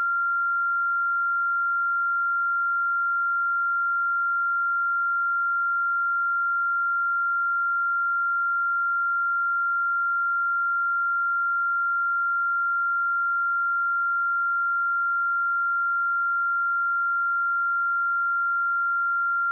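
A pure 1385 Hz sine-wave test tone, one steady high-pitched pitch held unbroken at a constant level.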